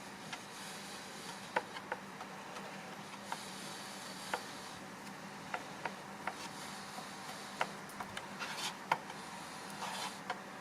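Two-part filler being mixed with its hardener using a spreader: irregular light clicks and taps, with a few short scrapes near the end.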